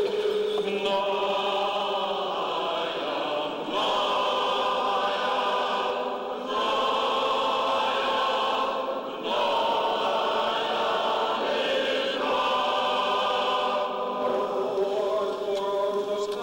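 Church choir singing Byzantine-rite liturgical chant in long held chords, phrase after phrase with short breaks between.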